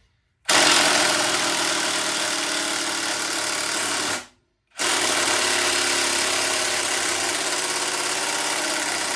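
Cordless impact wrench hammering on a socket against a stuck bolt in a motorcycle fork. It runs in two bursts of about four seconds each, with a short pause between them. The bolt does not break loose, which the user puts down to the impact's battery being flat.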